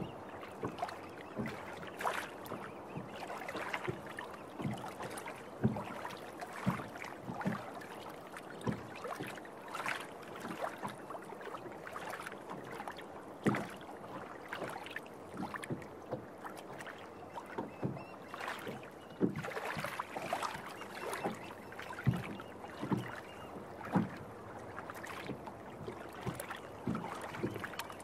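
Small waves lapping against the hull of a floating amphibian plane, with irregular slaps and light knocks of water on the hull; the engine is off.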